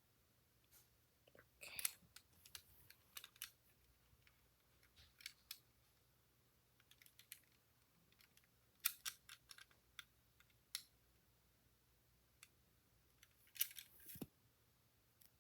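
Faint, scattered small clicks and light rattles of plastic Lego pieces being handled and pressed together, with a few sharper clicks around two seconds in, about nine seconds in and near the end.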